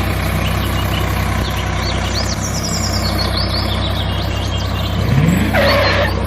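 Tractor engine idling steadily, with birds chirping over it. Near the end there is a short rising sound and a brief rasping burst.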